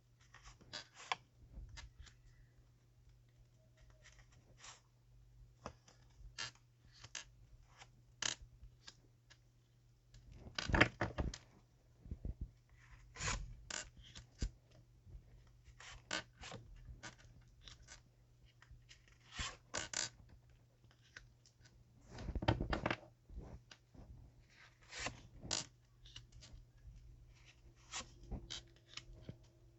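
Tarot cards being handled: irregular short rustles, taps and scrapes as cards are slid and laid down, with a few louder scraping swishes around the middle and a faint steady low hum underneath.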